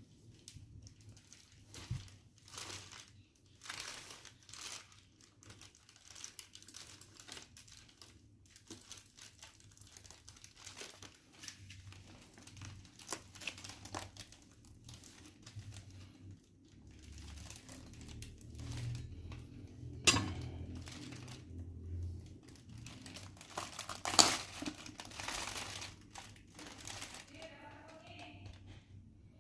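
Wrapping on a parcel being unwrapped by hand: irregular crinkling and crackling of the packaging, with a couple of louder, sharper rips a little past the middle.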